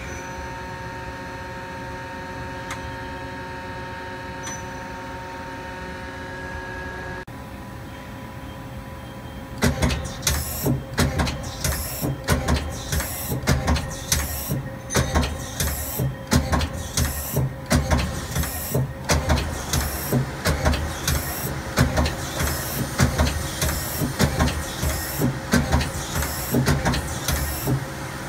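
Doosan Lynx 220LC CNC lathe, first a steady machine hum with a few fixed tones. About ten seconds in, the tool turret starts indexing from station to station, a fast, uneven run of loud mechanical clunks, roughly two or three a second.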